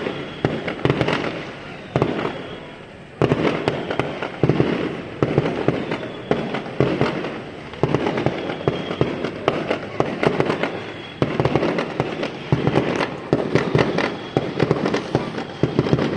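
Fireworks going off in a rapid string of sharp bangs and crackles, coming in surges every second or two.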